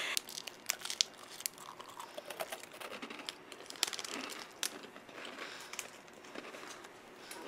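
Plastic candy wrapper crinkling and crackling as it is unwrapped close to the microphone, with irregular sharp crackles.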